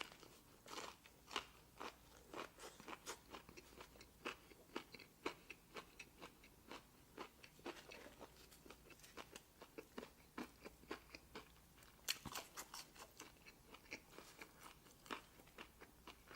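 Person chewing crunchy fast food close to the microphone: a run of quiet, crisp crunches and mouth clicks, with a brief flurry of sharper crunches about twelve seconds in.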